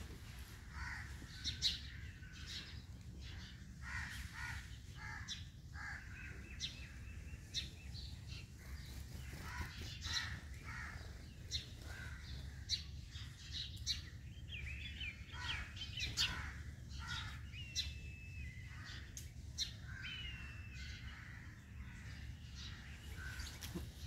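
Several birds calling: many short harsh calls and chirps, with a few thin gliding whistles in the second half, over a steady low rumble.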